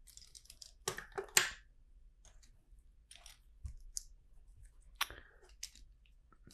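LEGO bricks and plastic pieces clicking and rattling as they are handled and snapped together, in scattered short clicks with a louder cluster about a second in and another near five seconds.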